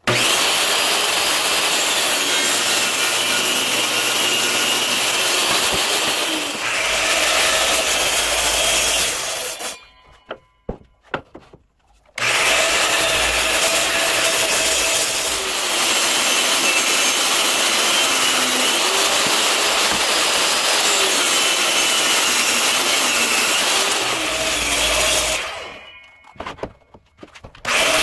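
Power saws cutting maple boards, a jobsite table saw and a Bosch sliding miter saw, each motor whining steadily as the blade runs through the wood. The saw stops twice, around ten seconds in and near the end, leaving a few clicks and knocks before the next cut.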